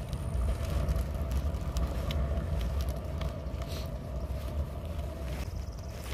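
Kick scooter's small wheels rolling over rough, cracked asphalt: a steady low rumble with a constant hum, broken by occasional short clicks and rattles.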